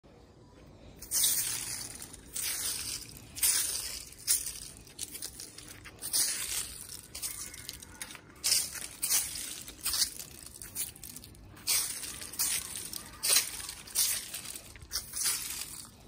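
Footsteps on wet concrete strewn with fallen leaves, a step roughly every two-thirds of a second, starting about a second in.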